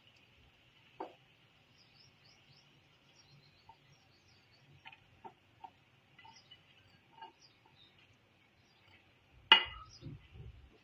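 A utensil clinking and tapping lightly against a pan as the cooked chicken filling is scooped out, with one sharp knock near the end followed by a few dull thuds.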